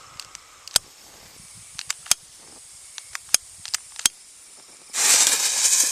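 Several sharp clicks while a firework fuse is being lit, then about five seconds in the fuse catches and burns with a sudden loud hiss.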